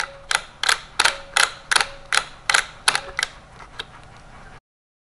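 Teletype encoder mechanism clicking as its lever is worked by finger: a sharp click about every third of a second, the last few fainter and further apart, then the sound cuts off abruptly. The mechanism is moving freely, with its contacts freshly cleaned and oiled, and the encoder seems to work fine.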